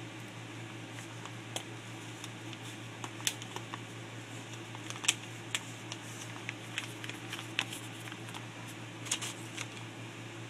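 Irregular small wet clicks and smacks of a mouth chewing a fresh wad of loose-leaf chewing tobacco, the sharpest about halfway through, over a steady low hum.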